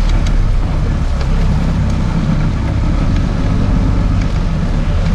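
Sport-fishing boat's engine running steadily with a low rumble, with wind buffeting the microphone.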